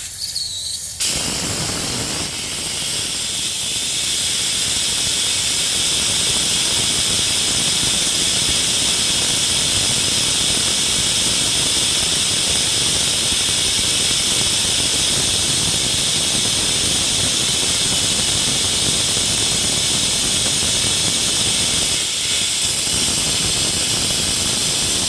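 A loud, steady rushing hiss that starts about a second in and cuts off suddenly at the end.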